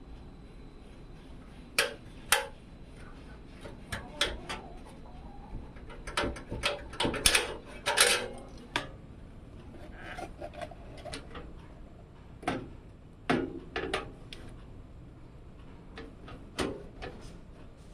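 Irregular clicks, taps and scrapes of hard parts being handled and fitted during a PC build, with a busier cluster a little before the middle.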